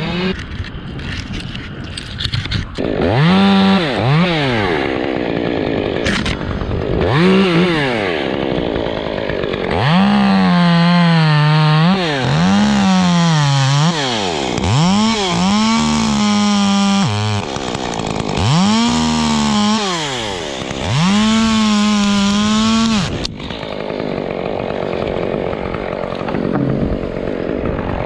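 Chainsaw engine revving up to full throttle and dropping back to idle again and again, about eight times. Most revs are quick blips; several near the middle and end are held at full speed for one to two seconds.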